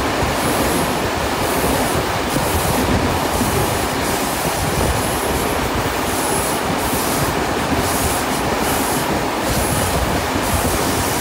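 Steam-hauled passenger carriages running along the track, heard from an open carriage window as a steady rumble and rush of noise. Faint, on-and-off high wheel squeal comes from the curve.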